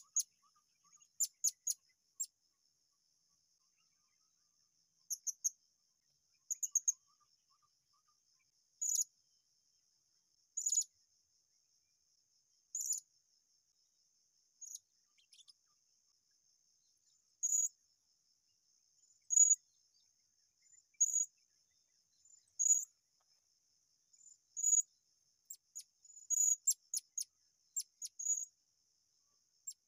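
Blue-crowned hanging parrot (serindit) in a decoy cage giving short, sharp, very high-pitched calls, one or a few at a time every second or two, coming in quicker clusters near the end. A steady high insect drone runs underneath.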